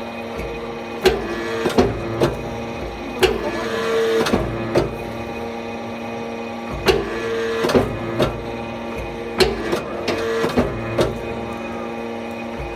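Hydraulic forging press running: a steady hum from its pump unit, with sharp knocks at irregular intervals, often two or three close together.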